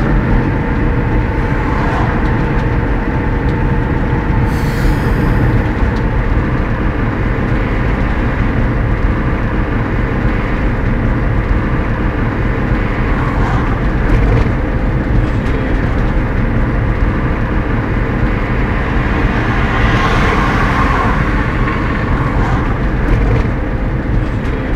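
Steady engine and road noise of a moving van, heard from inside the cab.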